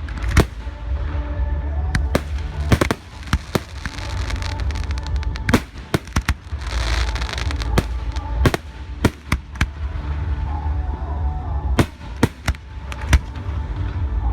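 Fireworks display: shells bursting in a rapid, uneven series of sharp bangs, with a spell of dense crackling about halfway through.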